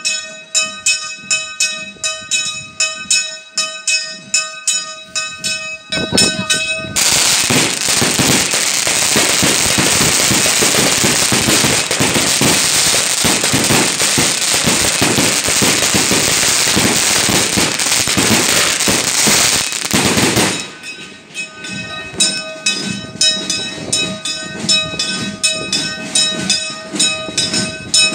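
A hermitage bell being swung full circle by hand with a crank, ringing about twice a second. About six seconds in, a long string of firecrackers goes off, a dense loud crackle that drowns the bell for about fourteen seconds before the bell rings out again.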